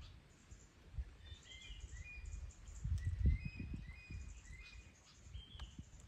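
Several short, high bird chirps in quick succession, over a low rumbling noise that swells about three seconds in.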